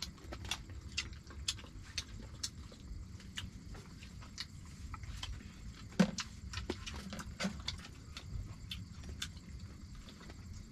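Dog eating from a plastic bowl on a bamboo floor: an uneven run of small clicks and smacks from its chewing and licking, with one louder knock about six seconds in.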